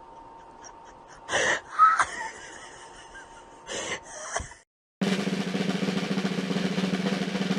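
A few short noisy bursts, then a brief gap and a steady drum roll that starts about five seconds in.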